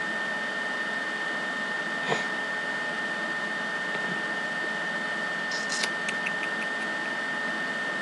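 Steady hiss of the recording microphone's background noise with a constant thin high tone running through it, broken by a faint click about two seconds in and a short run of faint ticks near six seconds.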